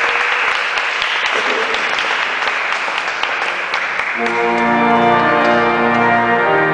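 Guests applauding, then about four seconds in an organ comes in with loud sustained chords as the applause fades.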